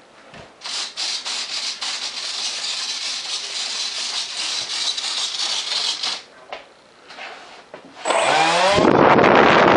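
A rushing hiss for several seconds. Then, about eight seconds in, an RC model's electric ducted fan spools up with a rising whine and runs loud and steady, its airflow rushing.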